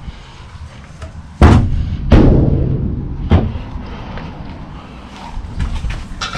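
Heavy metal clutch parts clunking: two loud thuds about a second apart, each ringing on briefly, then a lighter knock, as they are handled at the engine.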